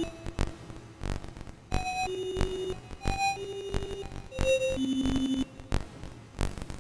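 Electronic background music: sparse synth notes, each held about half a second and moving between pitches, over sharp percussive clicks.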